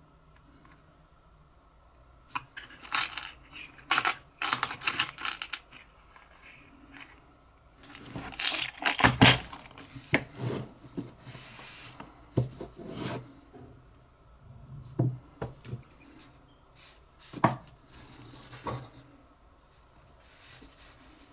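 Small metal tools and parts being handled and set down on a work surface: irregular clinks, rattles and scrapes, starting about two seconds in and loudest about eight to nine seconds in.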